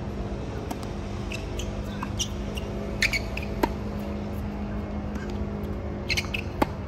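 Tennis rally on a hard court: two sharp racket-on-ball hits about three seconds apart, one just past halfway and one near the end, each just after short high squeaks of tennis shoes on the court surface. A steady low hum runs beneath.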